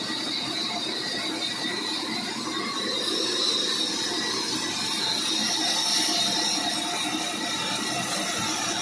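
Sawmill saw cutting through wood: a steady high-pitched whine over a continuous rushing noise.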